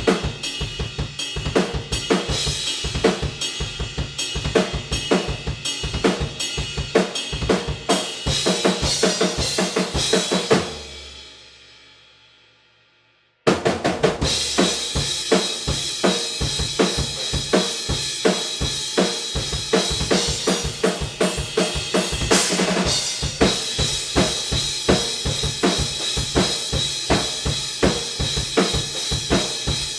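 Acoustic drum kit played fast (kick, snare and cymbals), recorded raw and unprocessed through a pair of Rode NT5 small-diaphragm condenser room mics placed far from the kit, so the room's reverb is part of the sound. About ten seconds in, the playing stops on a hit that rings out and fades away. About three seconds later the kit starts again abruptly.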